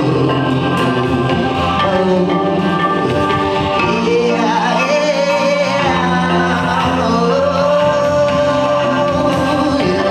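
Live band playing a song with sustained chords and bass under a wordless sung vocal line.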